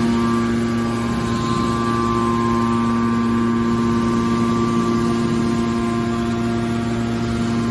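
Scrap metal baler's hydraulic power unit running, a steady machine hum with several held tones.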